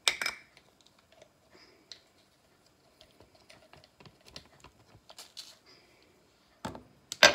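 Small clicks and taps of a spice jar and measuring spoon being handled as dried tarragon is measured out, with a sharp knock at the start and two louder knocks near the end.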